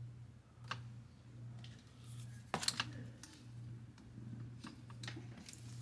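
Scattered light clicks and taps from handling a phone, with the loudest cluster about two and a half seconds in, over a steady low hum.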